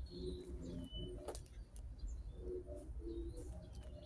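Birds calling: low, repeated cooing and a few short, high chirps.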